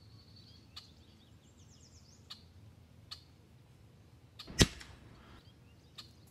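A few faint short clicks as a gray squirrel eats peanuts on a stump, then one sharp, loud crack about four and a half seconds in.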